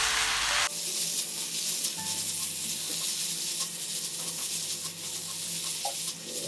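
Rice vermicelli with shredded cabbage sizzling in a hot nonstick wok while a silicone spatula stirs and tosses it. The fuller sound drops away sharply less than a second in, leaving a thinner, steady sizzle.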